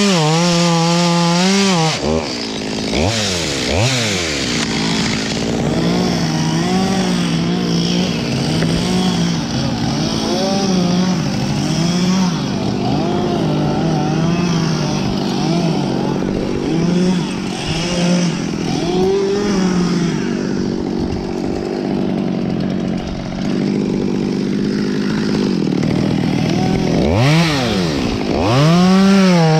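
Stihl MS 200T top-handle two-stroke chainsaw at full revs finishing a cut, then dropping back with a couple of quick throttle blips. It idles for about twenty seconds with a wavering pitch, then revs up again near the end to cut into the trunk.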